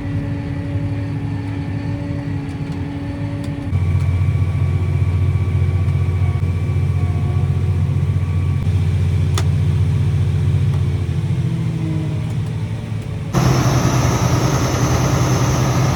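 John Deere 8235R tractor engine running steadily. It gets louder and deeper about four seconds in, and a broad rushing noise joins near the end.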